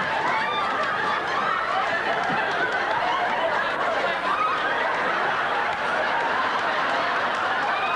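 An audience laughing steadily, many voices overlapping without a break.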